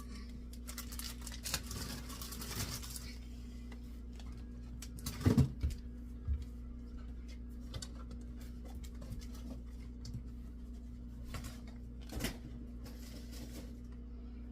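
Packaging rustling for the first few seconds, then scattered knocks as food items and containers are handled and set down while a fridge is cleared out, the loudest about five seconds in. A steady low hum runs underneath.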